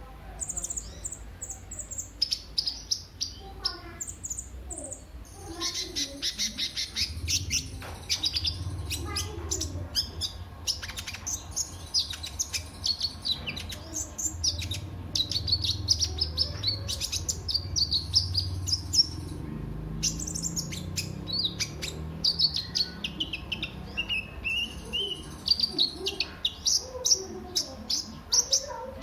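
Kolibri ninja sunbird singing a fast, continuous run of high, thin chirps and twitters, with a steady low hum beneath.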